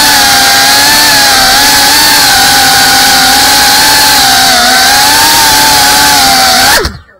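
FPV quadcopter's brushless motors and propellers whining loudly, heard from on board, the pitch wavering up and down with the throttle. Near the end the pitch drops and the sound cuts off abruptly as the motors stop.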